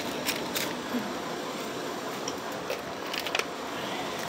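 Steady background noise with a few light clicks near the start and a couple more about three seconds in.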